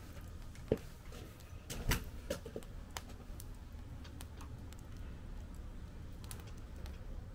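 Fire in a fire pit crackling: scattered sharp pops and ticks, the loudest about two seconds in and smaller ones after, over a low steady rumble.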